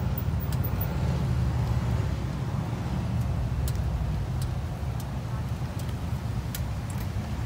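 Steady low rumble of motor traffic and running car engines, with a few faint clicks.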